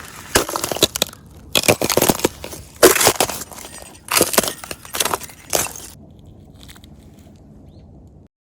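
Footsteps crunching through dry leaves and brush: five crackling steps about a second apart, then the sound drops away and cuts off near the end.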